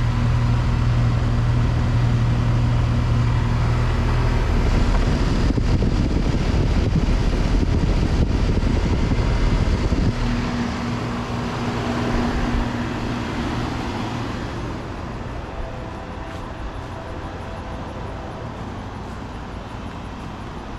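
Outdoor central air-conditioner condensing units running: a steady compressor hum under the rush of the condenser fan. It is loud for about the first ten seconds, drops suddenly, then fades to a weaker hum.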